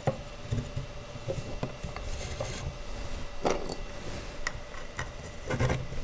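Painted wooden furniture panels and small screws being handled on a table: soft rubbing and scattered light clicks as screws are set into pre-drilled holes by hand, with a couple of louder knocks about three and a half and five and a half seconds in.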